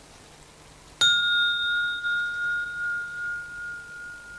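A glass struck once about a second in, ringing with a clear high tone and a fainter higher overtone that fade slowly.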